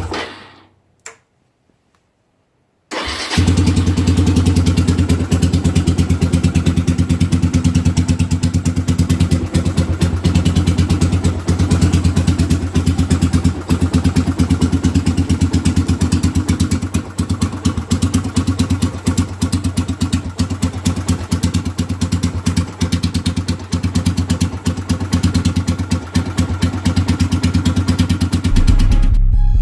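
Straight-piped 2007 Suzuki GZ250 single-cylinder engine dies away with a click, then starts again about three seconds in and runs at a steady idle. Music comes in near the end.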